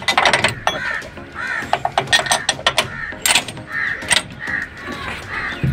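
Crows cawing several times, over a run of sharp clicks and clanks from the signal cabin's lever frame as the pointsman works the levers with the key.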